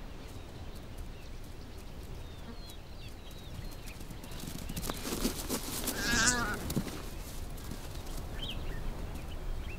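A short animal call with a wavering pitch, like a bleat, about six seconds in, inside a few seconds of louder noisy rustling. Faint high bird chirps sound earlier on.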